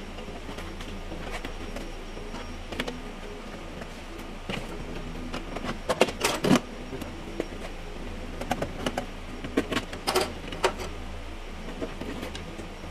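Irregular clicks, taps and knocks of hand work inside a car door's sheet-metal shell as the window regulator mechanism is fitted, with a steady low hum underneath. The busiest clatter comes about six seconds in and again around nine to ten seconds in.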